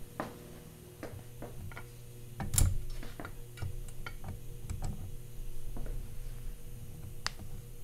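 Light metallic clicks and taps of small parts being handled at a VW 02J transmission case, with one louder knock about two and a half seconds in, over a steady low hum.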